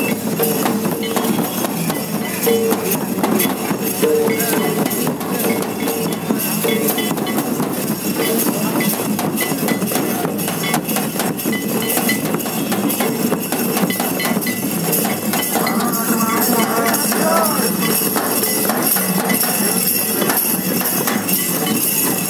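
Barrel-shaped hand drums beaten in a fast, dense rhythm, with a crowd's voices underneath and one voice calling out briefly about two-thirds of the way through.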